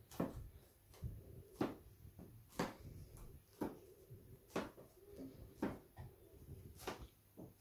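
Inflated rubber balloon dabbed repeatedly onto a stretched canvas and a paint plate, giving soft taps about once a second as it presses paint onto the surface.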